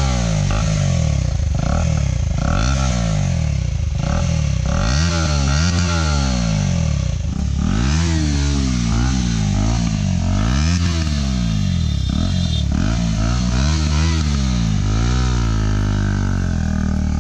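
KTM Duke 250's single-cylinder engine blipped and revved again and again through an Akrapovic exhaust with its silencer taken out, the pitch rising and falling with each rev.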